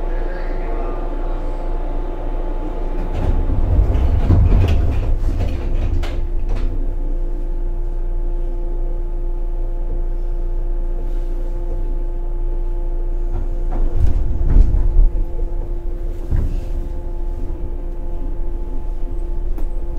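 Inside a 415 series electric train car at departure: the sliding doors close with heavy thuds and clatter about 3 to 6 seconds in, over a steady hum from the car's equipment. Further loud clunks come about 14 to 16 seconds in as the train gets under way.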